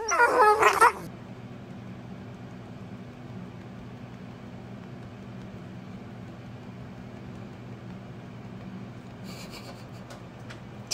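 Dogs and a man howling together for about a second, cut off abruptly. Then a low steady hum continues, with a few faint clicks near the end.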